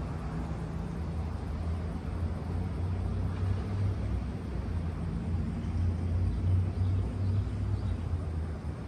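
Low, steady rumble and hum of a train's diesel locomotive, growing louder in the middle and easing near the end.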